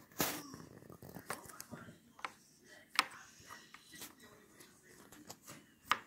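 Scattered light taps and clicks, about one a second, with faint rustling of things being handled at a table.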